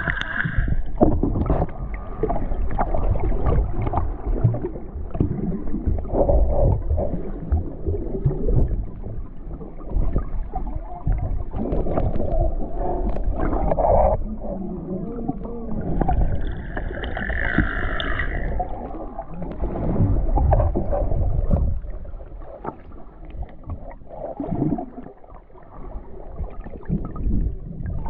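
Camera microphone under water while swimming: a muffled, low rumbling and gurgling of moving water, broken by scattered small knocks and bubbling.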